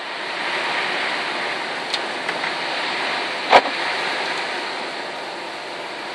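Steady rushing noise inside a moving car, with a few light clicks around two seconds in and one sharp click a little past the middle.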